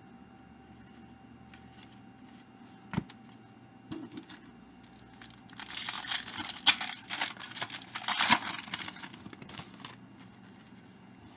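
Wrapper of a 1998 Fleer Tradition baseball card pack torn open and crumpled: a crinkly tearing that lasts about four seconds, loudest in two peaks, after a single light tap about three seconds in.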